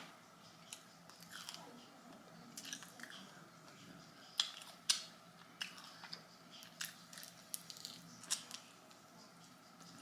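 Close-up chewing and biting on a crispy fried chicken wing, with scattered short crunches and wet mouth clicks at an uneven pace.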